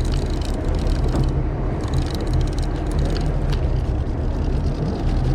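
Steady low rumble of a charter fishing boat's engine running, with a few faint scattered clicks and taps on top.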